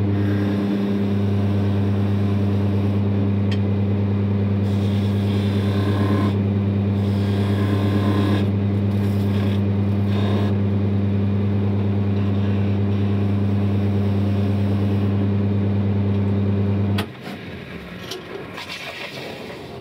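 Wood lathe running with a steady motor hum while a gouge cuts the spinning wooden handle, the shaving noise coming in stretches with short pauses. About seventeen seconds in the motor is switched off and the hum cuts off suddenly, leaving quieter scraping.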